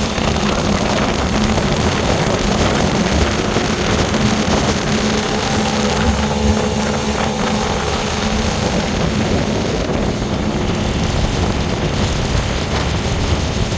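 Small motorboat's engine running steadily at speed, with a steady hum under the rush of wind and water.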